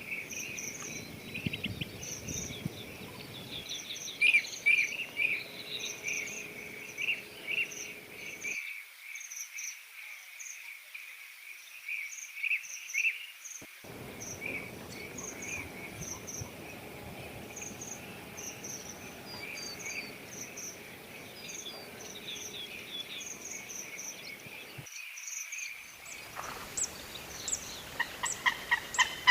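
Wild birds chirping and calling over a steady background of insects, with short calls repeating about every half second. About 26 seconds in, a run of louder, rapid, harsh calls begins.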